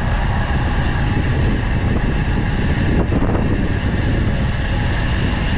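Steady wind rumble buffeting a bike-mounted camera's microphone, with road-bike tyres running on asphalt at descent speed.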